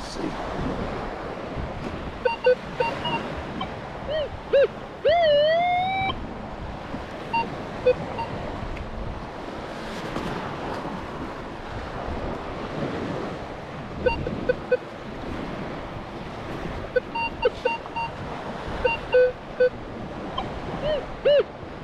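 Minelab Vanquish 540 metal detector sounding target tones: clusters of short beeps as the coil sweeps a dug hole, with a longer tone that dips and then rises about five seconds in and again at the end. The detectorist takes the mixed signals for more than one target in the hole.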